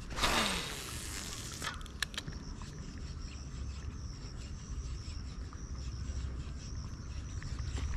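A spinning rod cast with a Lucana Komodo spinning reel: a whoosh of line paying off the spool with a falling whine for about a second and a half, then a sharp click. A steady high buzz of insects runs behind it.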